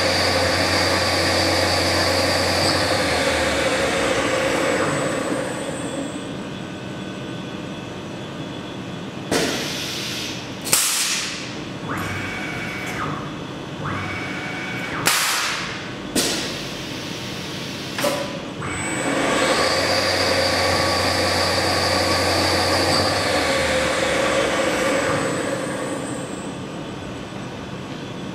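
Spindle of a small CNC mill with a BT30 automatic tool changer. The spindle runs with a steady whine, then winds down. In the middle come a series of clunks and short sharp air blasts as the tool changer releases and swaps the tool. About two-thirds of the way through the spindle spins back up with the same whine, then winds down again near the end.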